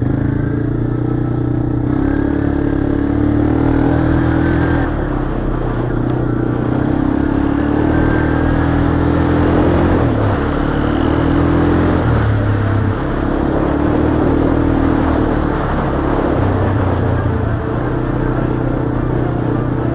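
ATV engine running on a trail ride, its pitch shifting up and down with the throttle every few seconds, over a steady rushing noise of travel.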